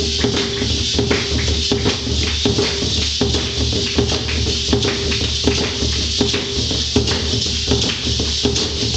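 A drum struck with a stick in a steady, even beat, about one strong stroke every three-quarters of a second, with a continuous hiss over it.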